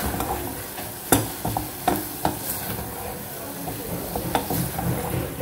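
Wooden spoon stirring chicken mince in a steel pot, with a few irregular knocks and scrapes against the pot over a steady sizzle of frying.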